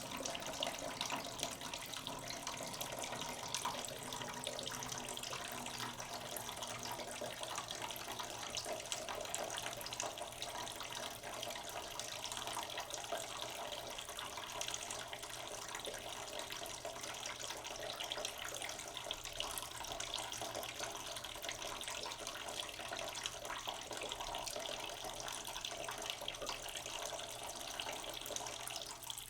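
Tap water running slowly into a cooking pot in a sink: a steady, unbroken stream filling the pot.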